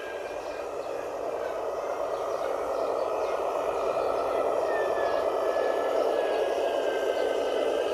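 Radio-controlled Scania 6x4 model truck driving with its loaded low-loader: a steady mechanical running sound, with a faint thin whine that drifts down in pitch in the second half.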